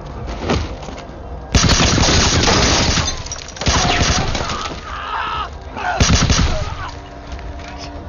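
Bursts of automatic rifle fire: a long rapid burst about a second and a half in, then shorter bursts later, with voices calling out in between.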